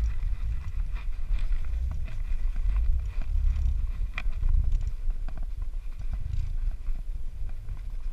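Metal carabiners and climbing rope clicking and knocking now and then, with a sharper click about four seconds in, over a low, uneven rumble of rope and handling noise on a chest-mounted camera's microphone.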